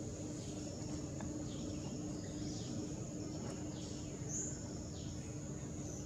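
Outdoor ambience: a steady high-pitched insect drone, with a bird giving short falling call notes about once a second over a low steady hum.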